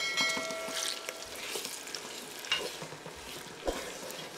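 Chopped onion sizzling in sunflower oil in a kazan while a wooden spatula stirs it, with several scraping strokes against the pot. The onion is being sautéed until golden. A brief ringing tone sounds in the first second.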